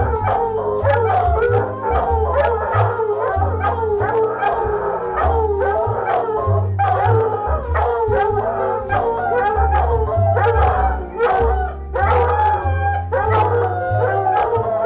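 Two coonhound puppies howling, long wavering howls that overlap one another, over music with a steady beat and a bass line.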